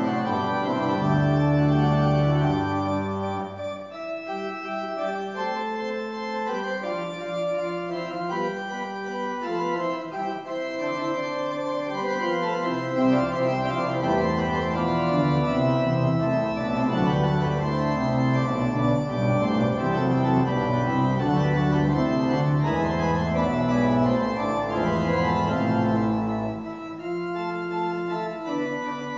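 Church organ playing a slow instrumental piece in sustained chords, with deep bass notes underneath at the start and again through most of the second half.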